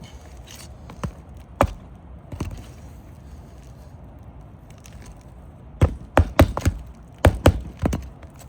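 Hammer blows on roofing nails in asphalt shingles: a few single strikes, then two quick runs of several strikes near the end.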